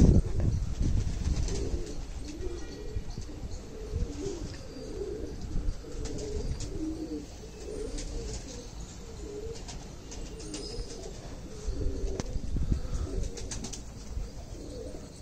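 Domestic pigeons cooing, a string of low throaty coos repeating throughout, with bursts of low rumble, the loudest near the start and about twelve seconds in.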